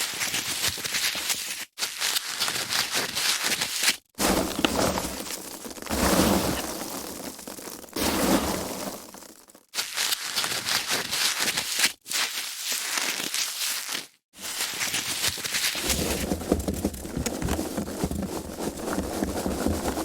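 Foam packaging being handled, rubbed and crinkled, in a run of takes broken by short silent gaps every few seconds.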